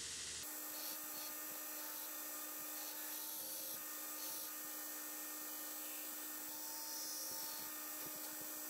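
2x72 belt grinder running steadily as an 80CrV2 steel blade blank is pressed against the belt to grind its profile; faint, an even hiss with a steady low hum.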